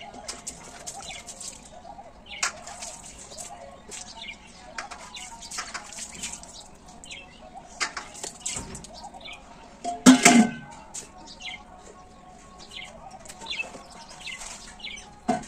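Small birds chirping, with scattered clinks and splashes as someone rinses with water from a large steel container after brushing teeth. A louder, brief noise comes about ten seconds in.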